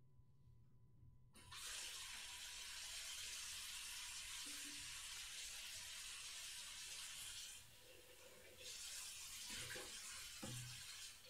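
A steady hiss like running water, in two stretches: about six seconds, a brief break, then about two and a half seconds more, with a couple of soft low knocks near the end.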